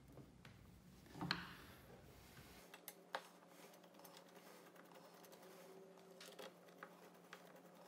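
Faint, scattered clicks and taps of small screws being set and turned in with a hand screwdriver through a bracket under a metal wire basket, with one sharper click about a second in.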